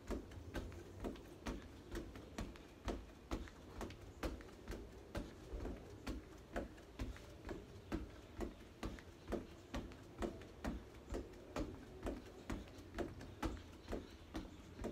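Sneakered feet landing on a wooden deck during straddle jumps: a steady rhythm of short thuds with a tap in each, about two a second.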